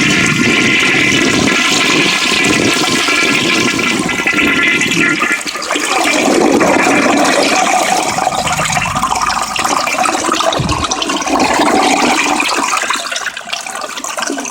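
Orion toilet flushing: water rushes through the bowl, with a high whistling tone over the first five seconds. The sound changes about five seconds in, runs on, and eases near the end. The phone recording slightly distorts the water sound.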